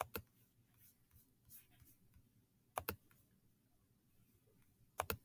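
Sharp clicks of computer input while working a drawing program: three quick pairs of clicks about two and a half seconds apart, with near silence between them.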